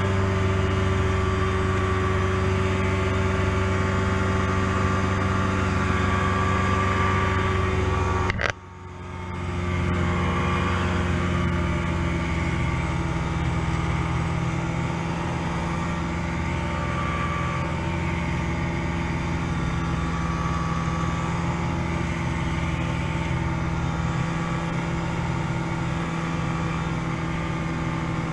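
Challenger I ultralight's two-stroke engine running steadily in flight. About eight seconds in, the sound briefly drops out and comes back at a slightly lower pitch.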